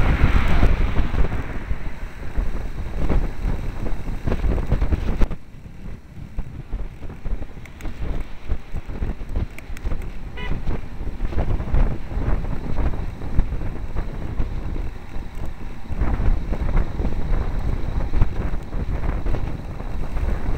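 Wind buffeting the microphone of a bicycle-mounted camera at riding speed, with road rumble and frequent small rattles from the bike over the tarmac. It drops noticeably quieter a little over five seconds in and builds up again near the end.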